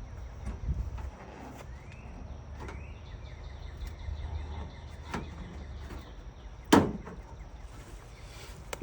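Aluminum siding being pried and pulled apart: scattered sharp metallic clicks and knocks, with one loud clank about two-thirds of the way through, over a steady low rumble.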